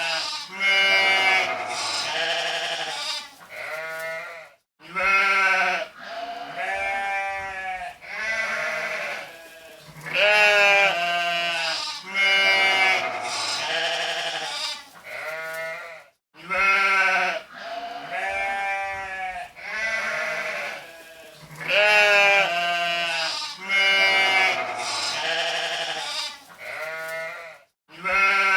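Sheep bleating, one quavering call after another with some calls overlapping. The same run of bleats repeats about every twelve seconds, each time after a brief break.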